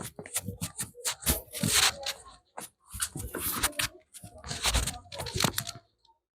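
Barber's hands massaging a person's head and hair: rubbing, scratching and tapping in uneven bursts, stopping near the end.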